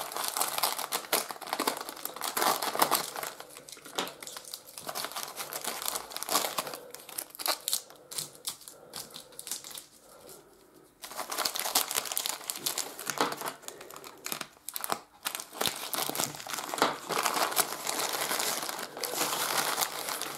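Brown paper parcel wrapping being cut with scissors, then torn and crumpled by hand: a dense run of crinkling and rustling with sharp crackles, dropping to a short lull about ten seconds in before starting again.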